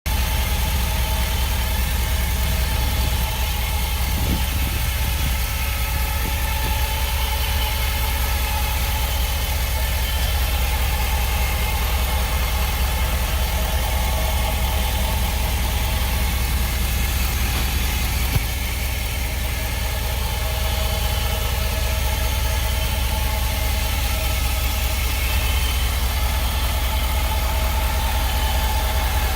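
2016 Ford F-250 Super Duty engine idling steadily, with a whine from the bell housing area between engine and transmission, the noise under investigation. A single sharp click about eighteen seconds in.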